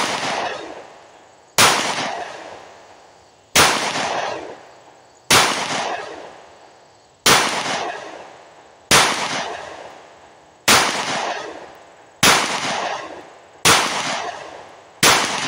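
Smith & Wesson M&P Shield Plus 9mm micro-compact pistol firing about ten single shots at an even, deliberate pace, roughly one every 1.5 to 2 seconds. Each shot is a sharp crack that trails off in a long echo before the next.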